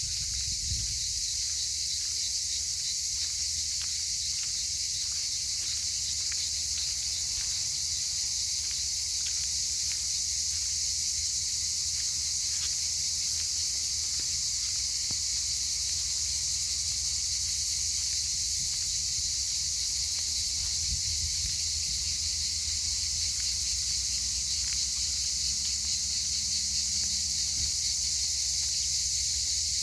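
Cicadas calling in a dense, continuous chorus, a steady high-pitched hiss that never lets up, over a low rumble.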